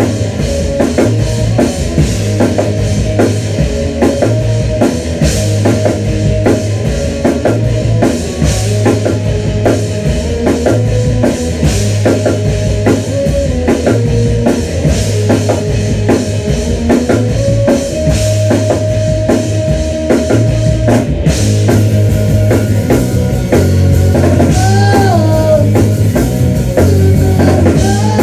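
A rock band playing loud in a rehearsal room: electric guitar over a pounding drum kit and a low bass line that steps from note to note.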